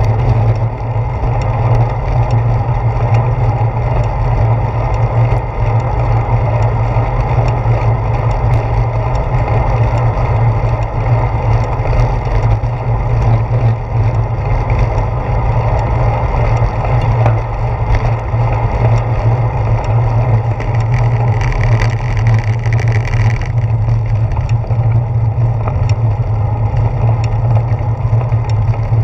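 Wind and road rumble picked up by a handlebar-mounted GoPro Hero 4 on a moving bicycle: a loud, steady low rumble with a hiss over it. For a couple of seconds near the end a brighter hiss joins in, then stops sharply.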